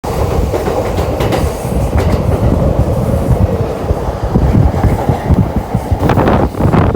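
Doctor Yellow, the Shinkansen track-inspection train, running on the rails: a loud, dense rumble of wheels and running gear with irregular clatter, louder for a moment about six seconds in.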